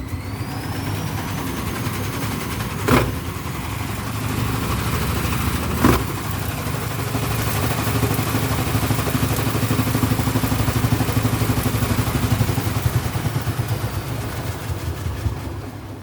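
Vestel washing machine running a spin: the motor hums with a rising whine and the drum knocks hard twice, about three and six seconds in. It then throbs fast and regularly before winding down near the end, the sign of an unbalanced spin.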